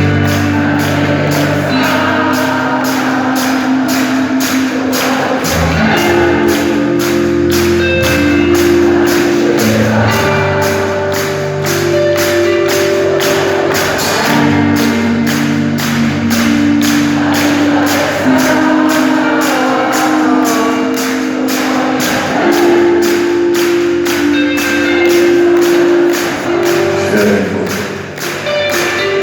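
Live band playing a mid-tempo French pop song: sustained chords over a bass line and a steady beat of shaken percussion, with voices singing along; the audience has just been invited to sing together.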